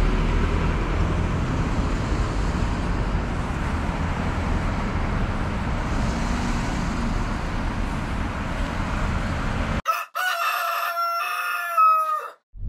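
Steady road traffic noise from cars passing on a busy street. About ten seconds in it cuts off abruptly and a rooster crowing sound effect plays once, for about two seconds, marking the switch from night to daytime.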